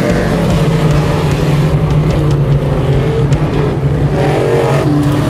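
Crate V8 engine of a dirt modified race car running loudly on the dirt oval, a steady drone with the engine note climbing near the end.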